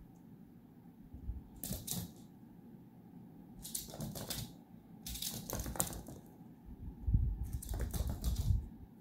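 A small dog's claws clicking and skittering on a hardwood floor as it scurries about, in four bursts of rapid clicks, with dull thumps of footfalls in the last burst.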